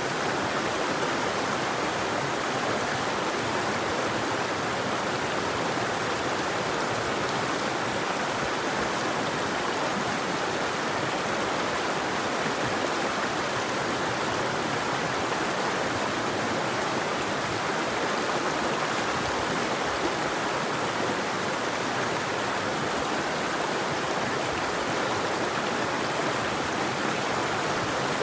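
River water flowing steadily in an even, continuous rush, with no birdsong.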